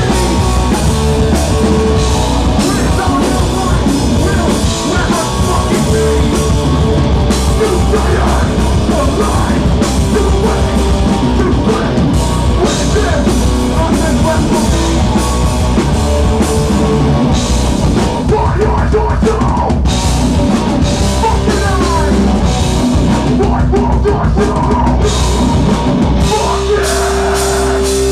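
Hardcore band playing live: heavily distorted electric guitars and bass over a drum kit with frequent crashing cymbals, loud and dense.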